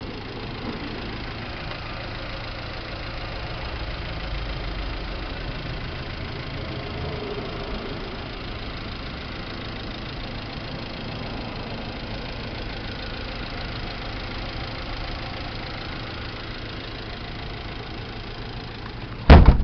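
Mazda Bongo van's 1.8-litre L8 four-cylinder petrol engine idling steadily with its engine cover open, then one loud bang near the end.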